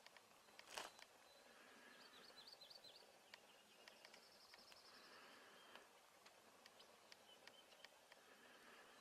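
Faint outdoor quiet with distant small birds: a run of wavy high chirps a couple of seconds in, a short high trill around halfway, and scattered high ticks. A brief thump about a second in is the loudest sound.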